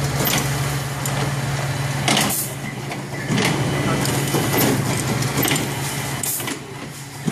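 Yamamoto towel-folding machine running: a steady low mechanical hum with brief hissing bursts about two seconds in and again near the end.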